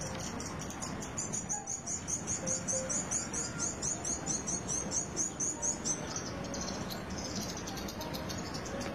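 An insect chirping high and fast, about five chirps a second, stopping about six seconds in, over outdoor ambience.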